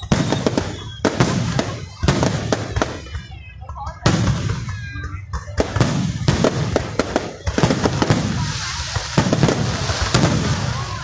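Aerial fireworks shells bursting one after another, a sharp bang about every second, with crackling filling the gaps and swelling into a dense crackle near the end.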